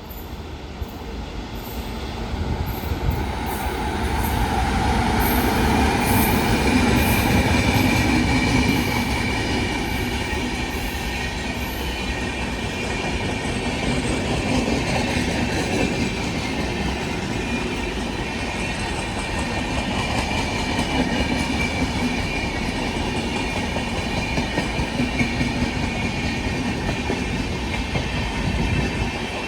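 A train passing close by on the track: the noise grows louder over the first few seconds, then runs on steadily for a long time with wheels clattering over the rail joints.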